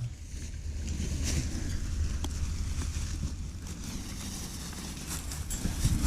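Low, steady wind rumble on the camera microphone, with a few faint ticks.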